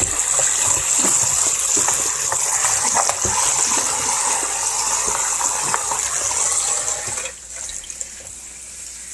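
Water running from a kitchen tap as raw chicken is rinsed under it, a steady rush with small knocks and splashes from the handling. The rush drops away about seven seconds in.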